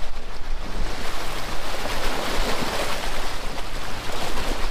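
A 4x4 vehicle's engine running low under a loud rushing noise that swells about two seconds in and eases off again.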